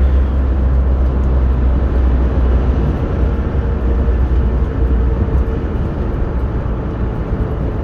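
Car driving at highway speed, heard from inside the cabin: a steady low engine and tyre rumble with road noise, easing slightly in the second half as the car passes a truck.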